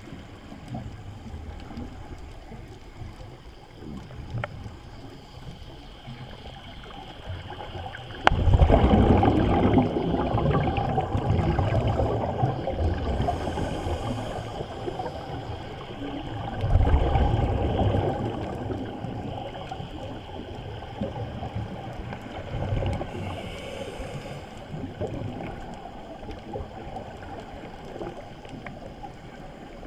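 Scuba exhalation bubbles heard underwater: long gurgling rushes, the first starting suddenly about eight seconds in and another about eight seconds later, with a low underwater hiss between breaths.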